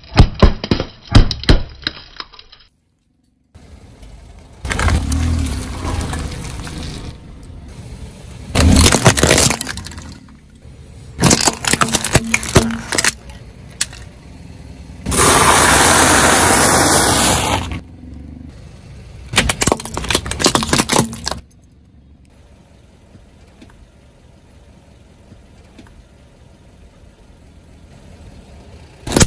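Brittle plastic objects, such as disposable lighters and plastic toys, cracking and crunching under a car tyre in a series of separate crushes. About halfway through comes a loud, steady rushing hiss of about three seconds, and the last several seconds are much quieter.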